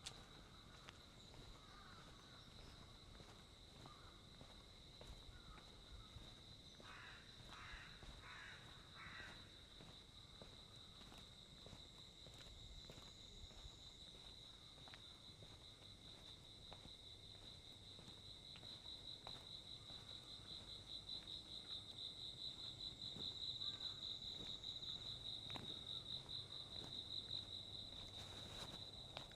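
An insect trilling: one steady high-pitched note that gets louder and pulses rapidly in the second half. About a quarter of the way in, a crow caws four times in quick succession.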